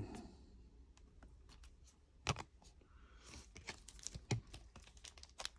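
Faint handling of trading cards: soft clicks and light rustling as cards are set down on a cloth-covered table, with two sharper taps about two seconds in and again near the end.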